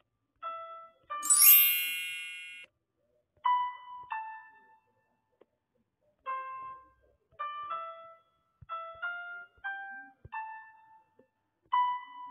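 Background music of slow, sparse single piano notes, each ringing out and fading with short gaps between. Near the start, a bright chime with glittering high overtones is the loudest sound.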